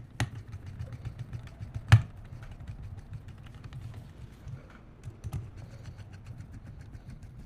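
Light scattered clicks and three sharper knocks, the loudest about two seconds in, over a steady low hum: hard parts of a liquid CPU cooler and PC being handled and fitted.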